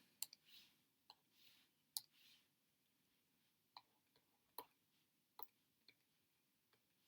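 Near silence broken by a few faint, irregular clicks.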